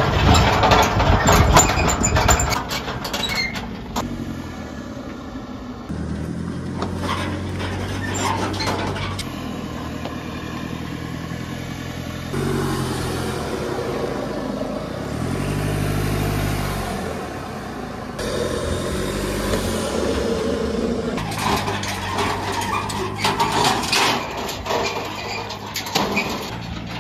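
Chevy Colorado's diesel engine pulling under load while towing a car-hauler trailer up a rock trail, its pitch and level changing from one edited shot to the next. The first few seconds carry a loud burst of crunching, crackling noise.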